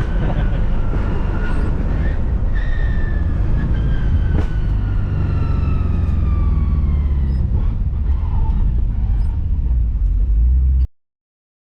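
2005 Pontiac GTO's V8 driving, with a steady low engine and road rumble and a whine that falls slowly in pitch from about three seconds in. The sound ends abruptly near the end.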